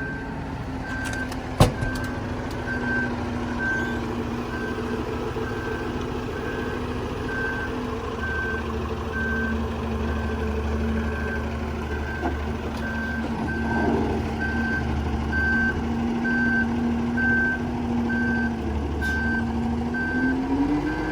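Heavy machine's back-up alarm beeping about once a second over its engine running steadily; the engine revs up near the end. A sharp click sounds once, about a second and a half in.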